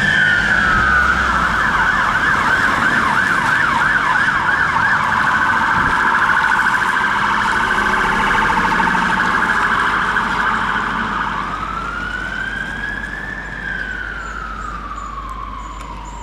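Fire engine siren on a turntable ladder driving away on an emergency call. It cycles through its tones: a slow falling wail, a rapid yelp, an even faster warble, then a slow rising-and-falling wail. It fades over the last several seconds as the vehicle drives off.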